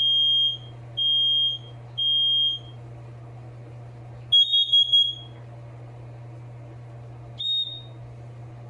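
Smoke alarms sounding under test: a high-pitched alarm horn beeps three times, each about half a second long and a second apart, in the temporal-three fire evacuation pattern. Then a longer, fluttering alarm beep of two close pitches sounds, and a short beep comes near the end.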